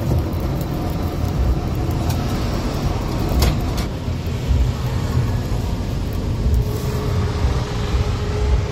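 Steady low rumble of background noise, with a couple of faint clicks about three and a half seconds in.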